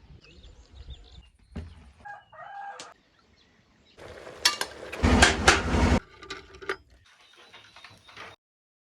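Chickens clucking and a rooster crowing, heard in short segments that start and stop abruptly. A loud, noisy stretch of clattering knocks runs from about four to six seconds in.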